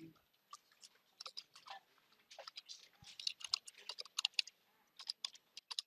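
Typing on a computer keyboard: quick, irregular runs of faint key clicks with short pauses between them.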